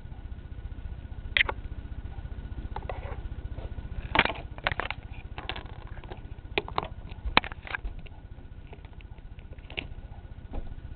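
Handling noise: irregular sharp clicks and knocks as fingers move small plastic Lego minifigures close to the camera, loudest about four and about seven seconds in, over a steady low hum and a faint high steady tone.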